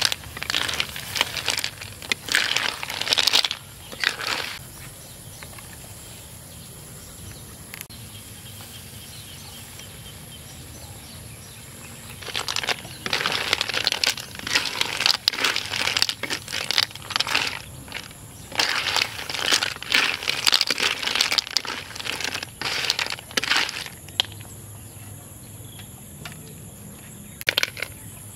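Snail shells being stir-fried in a hot wok, clattering and scraping against the metal as they are tossed, in repeated bursts. The stirring comes for a few seconds, pauses for several seconds of quiet background hiss, then goes on for about twelve seconds more, with a couple of short bursts near the end.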